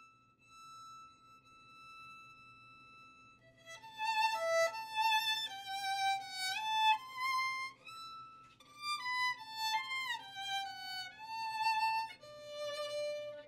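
Background music: a single melodic line, first one long held note, then from about four seconds in a flowing tune whose notes slide into one another.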